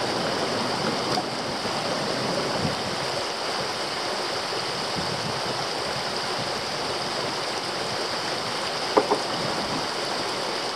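Creek water running steadily over rocks, a constant even rush. About nine seconds in, two short sharp sounds come close together.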